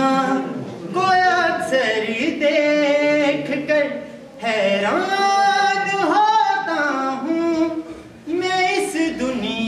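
A man singing solo with no accompaniment, in phrases of long held notes that bend and slide in pitch.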